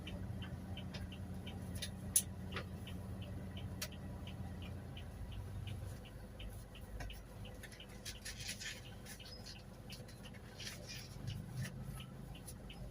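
Toyota Hiace Commuter's engine humming low inside the cabin, with the turn-signal relay ticking steadily at about two and a half clicks a second. A few single clicks and a short hiss come in about eight seconds in.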